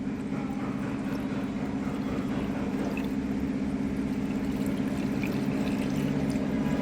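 Water pouring into a car's radiator to top it up, over a steady mechanical hum; the level creeps up slightly as it fills. The radiator is low because the engine is overheating and losing coolant.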